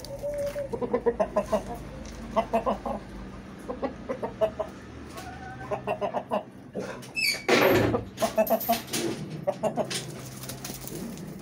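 Aseel chickens clucking and squawking in short runs of calls as an aggressive rooster chases a hen. A loud flurry of flapping wings and scuffling comes about seven seconds in.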